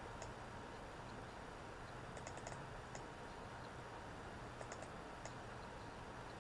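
Faint clicks on a computer keyboard: a quick cluster of three or four about two seconds in and single clicks before and after, over a steady low hum and hiss.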